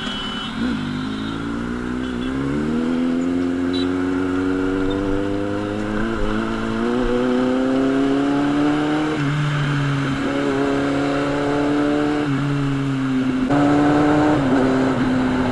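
Kawasaki Z800's inline-four engine, fitted with a loud aftermarket exhaust, pulling away under acceleration. The note climbs steadily, breaks and steps at several gear changes, then settles to a near-steady cruise.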